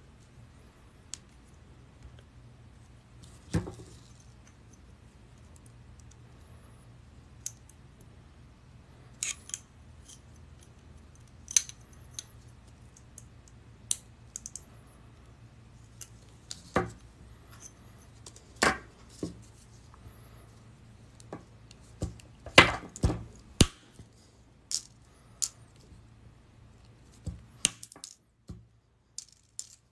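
Pliers snipping rings off a coil of paperclip wire wound on a nail: sharp metallic snips at irregular intervals, with a quick cluster of them about three-quarters through. A low steady hum runs underneath.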